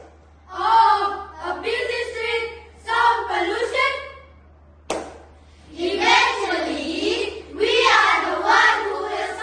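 A group of children reciting and chanting in unison in short phrases. There is a single sharp impact a little before the midpoint.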